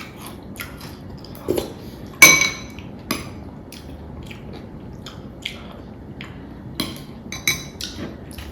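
Eating sounds: a series of sharp clinks and taps of utensils against a plate, with chewing in between. The loudest clink comes about two seconds in and rings briefly.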